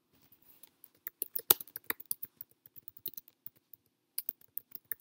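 Typing on a computer keyboard: a quick, irregular run of key clicks starting about a second in, with one louder keystroke among them.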